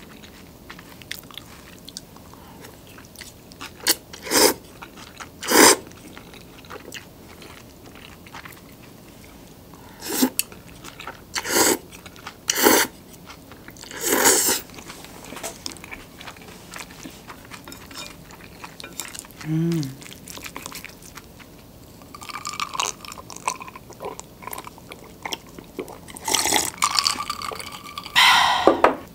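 Close-miked mouth sounds of eating aburasoba noodles: a run of about six loud, short slurps in the first half, with quieter chewing between them, and more loud slurping and mouth sounds near the end.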